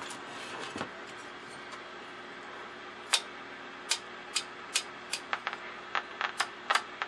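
A run of about a dozen sharp, irregular clicks starting about three seconds in, as the tuner of a Philco Predicta television is worked by hand, over a steady hiss.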